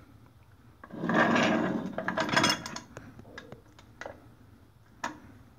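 A sheet aluminum shim scraping as it is slid along the concrete floor and pushed under the surface grinder's toe jack: a rasping drag of about two seconds, then a few light metallic clicks.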